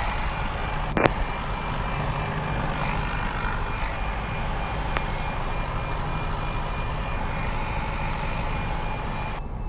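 Piper PA-28 light aircraft's piston engine running steadily at low taxi power, a continuous drone, with a sharp click about a second in.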